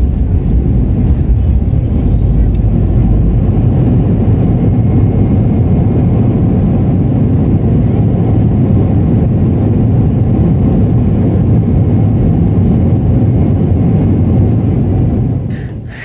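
Airliner cabin noise during the landing roll just after touchdown: a loud, steady, low rumble that falls away near the end.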